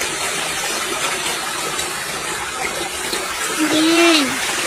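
A domestic cat gives one short meow, rising then falling in pitch, about three and a half seconds in, over a steady rushing hiss.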